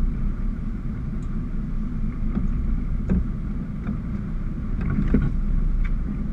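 Steady low rumble of a sport-fishing boat, with a few light clicks and knocks, the clearest about three and five seconds in.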